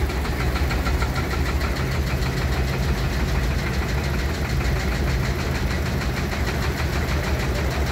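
Vintage tractor engines running steadily at low revs, with a low, even beat.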